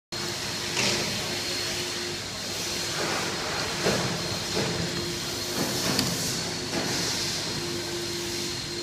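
Steady hum and hiss of workshop machinery, with a faint low tone that comes and goes and a few light knocks.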